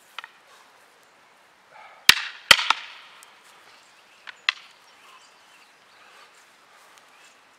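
Wooden fighting sticks striking during a stick-fighting bout: two loud sharp cracks about half a second apart some two seconds in, then a couple of lighter clacks near four and a half seconds.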